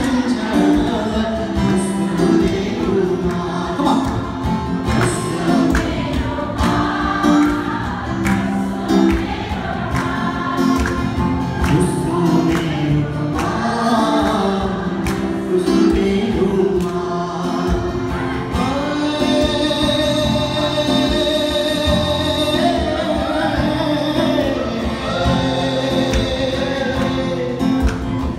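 Live performance of a Nepali song: singing to a strummed acoustic guitar, amplified through the stage sound system.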